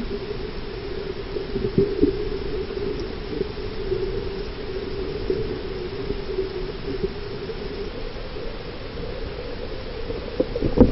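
Underwater ambience heard through a camera housing: a steady hiss with a wavering low hum, and brief knocks about two seconds in and again near the end.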